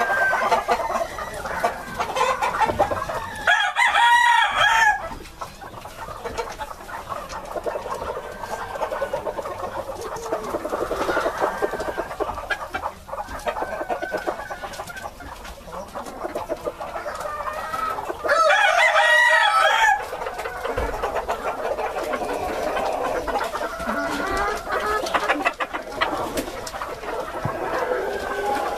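Flock of Golden Phoenix bantam chickens clucking and chattering, with a rooster crowing twice, about three and a half seconds in and again about eighteen seconds in, each crow lasting about a second and a half.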